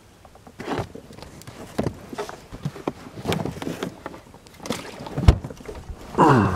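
A plastic cooler lid being lifted and dropped shut in a boat, with a string of knocks and clatters and one sharp thump about five seconds in. A short falling squeal comes just before the end.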